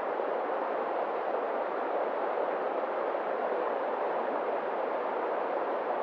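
Fast, swollen river rushing over rocks: a steady, even rush of water with no breaks or changes.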